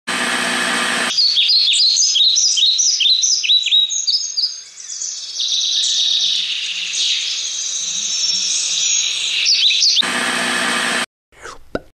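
About a second of TV static hiss, then birds chirping: a run of quick, falling chirps about two a second, followed by denser chirping. The static hiss comes back near the end and cuts off suddenly.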